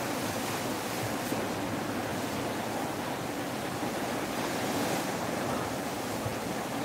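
Sea water churning and rushing along the hull of a moving ship, a steady, even wash of noise with wind blowing across the microphone.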